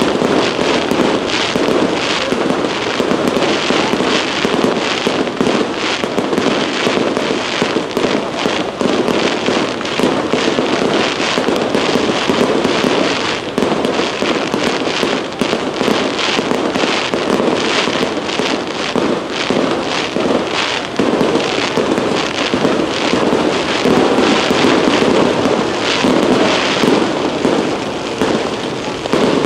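Aerial fireworks display: a continuous, rapid run of shell bursts, bangs and crackles, several a second with no break.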